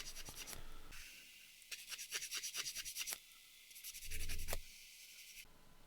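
Rough edge of a plastic model part being smoothed by hand with an abrasive: a run of quick back-and-forth scraping strokes, then one louder rub with a low bump about four seconds in.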